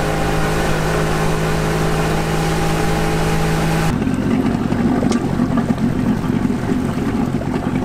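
Small boat's outboard motor running steadily under way, a steady engine hum over the rush of water. About four seconds in the sound cuts to a rougher, duller low rumble with less hiss.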